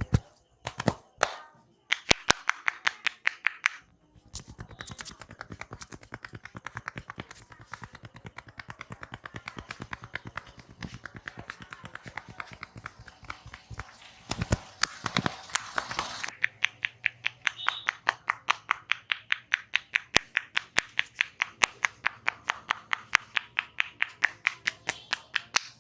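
Rhythmic percussive hand strikes of an Indian head massage: a long run of fast, softer taps, then sharper, louder slaps about five a second from about sixteen seconds in.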